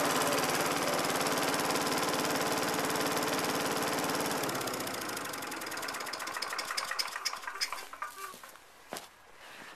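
LPG-fuelled Briggs & Stratton four-stroke single-cylinder lawn mower engine running steadily. About four seconds in it cuts out and coasts to a stop, its clicks slowing and spreading out.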